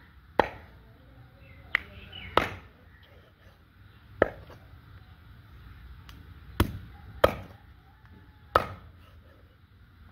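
Meat cleaver chopping rooster pieces on a wooden tree-stump block: seven sharp, uneven strikes, some a second or two apart, some closer together.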